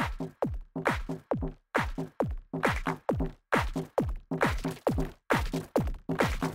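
Background electronic music with a steady, chopped beat: deep kick drums that drop in pitch, several a second, cut into short stuttering bursts.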